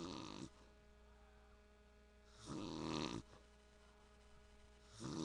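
A man snoring in his sleep: a snore under a second long about every two and a half seconds, three in a row.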